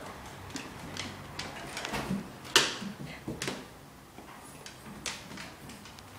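A dog's claws clicking and tapping on a hardwood floor as it walks, in a few irregular taps, with a sharper click about two and a half seconds in and another about a second later.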